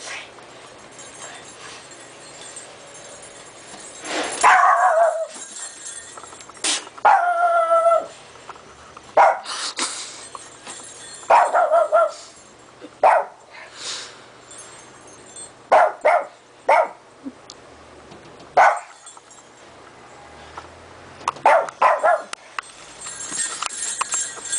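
Small dogs, a Japanese Chin and a Chin–Shih Tzu cross, barking and yipping in short, irregular bursts while play-fighting, some barks falling in pitch.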